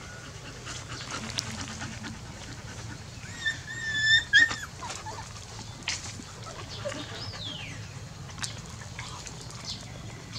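A dog whining: one high-pitched whine held about a second, a little before the middle, and a shorter falling whine a few seconds later.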